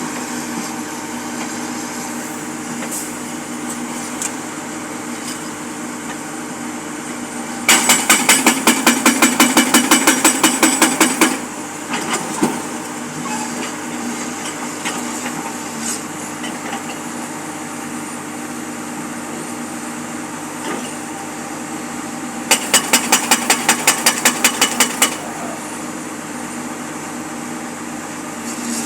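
A jackhammer breaking up old material, in two bursts of rapid blows, about six a second, each lasting about three seconds, the first near the start of the middle third and the second near the end. A steady engine runs throughout.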